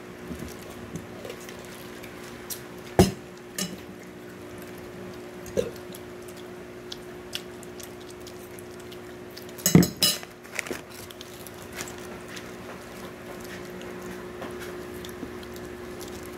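Dishes and cutlery knocking and clinking during a meal: two sharper knocks about 3 and 10 seconds in, with a few light taps between. A steady low hum runs underneath.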